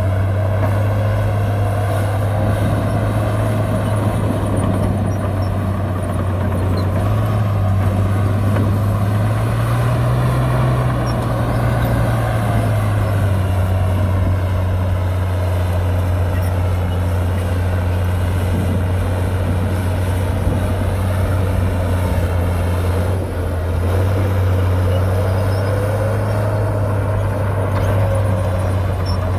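Heavy diesel engine of earthmoving machinery running steadily, revving up briefly about ten seconds in and then settling back.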